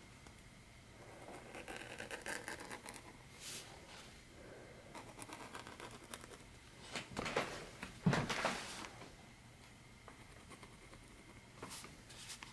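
Metal dip-pen nib scratching across sketchbook paper in short ink strokes with quiet gaps between them, the strongest run of scratching about seven to nine seconds in.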